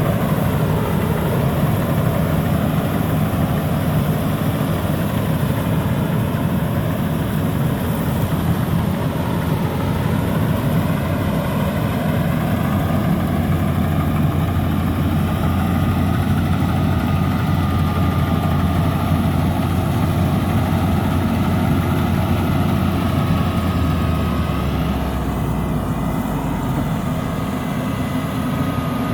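Rice combine harvester running steadily: a low engine hum under dense machinery noise. About 25 seconds in, the low tone drops in pitch and the sound gets slightly quieter.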